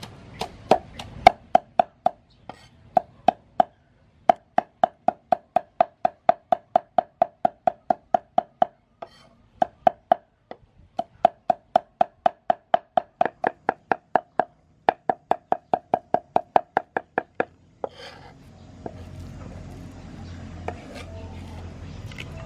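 Cleaver chopping soaked dried red peppers on a round wooden chopping board: rapid knocks, about four a second, in runs with short pauses, each knock with a short ringing note from the board. The chopping stops about four seconds before the end.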